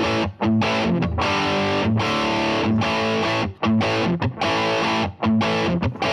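Rock music led by a distorted electric guitar, loud and steady, with short breaks between phrases.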